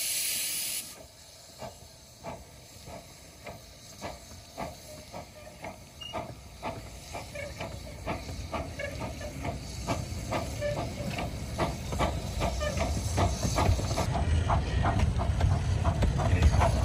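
Hiss of steam from the cylinder drain cocks of a one-third-scale steam locomotive, Southern Maid, which stops about a second in. The train then pulls away, with a regular clicking beat that quickens and grows louder over a rising low rumble as the coaches roll past.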